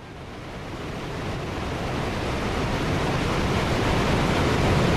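Steady rushing noise of a large waterfall, fading in and growing louder.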